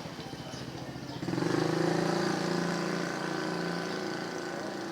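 An engine running with a fast, even pulse, then about a second in a louder steady hum that holds one pitch.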